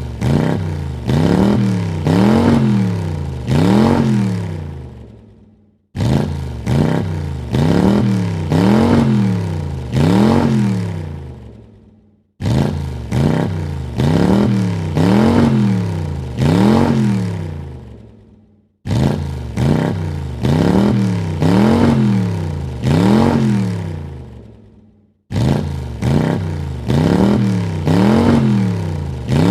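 Car engine revved in three quick blips, each rising and falling in pitch, then dying away. The same burst starts abruptly and repeats about every six and a half seconds, five times over.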